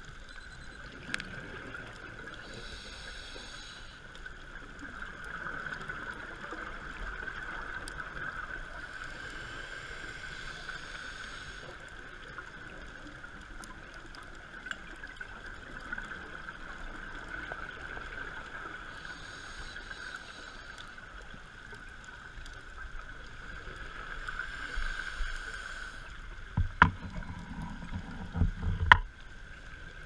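Underwater ambience picked up by a diver's camera: a steady hum with a soft hiss coming and going every several seconds, and a few loud, low bubbling rumbles close to the microphone near the end.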